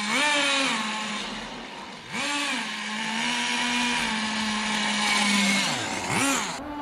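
Thunder Tiger Pro-18BXS nitro glow engine of a 1/10 RC monster truck running at a high buzz. It revs up and drops back three times, near the start, about two seconds in and near the end, with steady running in between.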